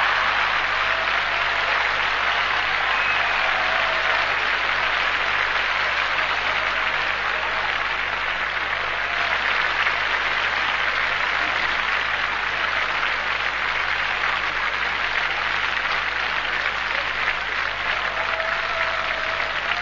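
Live cabaret audience applauding steadily in a long, unbroken round that follows a punchline.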